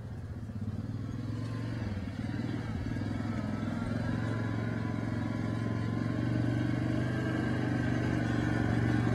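ATV engine running steadily as the four-wheeler rides toward the listener, growing gradually louder as it approaches.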